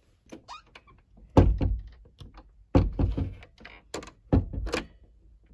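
Dull thunks and rattles from an interior door being handled, as a hand turns its knob to unlatch and open it. The three loudest knocks come about a second and a half apart.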